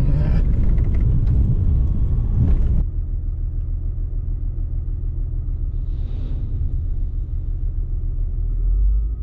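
Inside a pickup cab: road rumble with rapid knocks and rattles as the truck drives over a potholed gravel quarry road. About three seconds in it changes abruptly to a steadier low engine rumble as a wheel loader works at the back of the truck, loading base rock into the bed.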